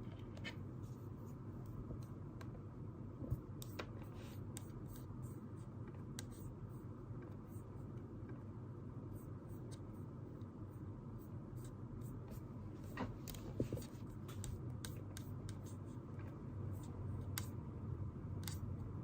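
Steady low room hum with scattered light clicks and taps from small objects being handled at a desk. The two more distinct knocks come about three seconds in and around thirteen seconds in.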